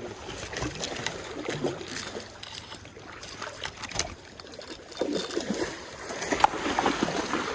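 Running water of a shallow stream, with scattered clicks and knocks; the water noise grows louder in the last couple of seconds.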